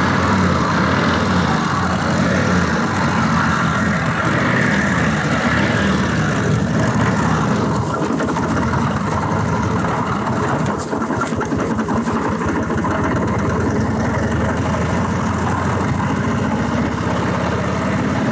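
1947 Harley-Davidson's V-twin engine idling steadily, newly brought back to running after sitting some 60 years.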